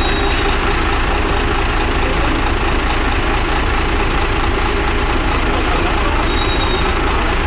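A heavy engine idling steadily, with faint voices in the background.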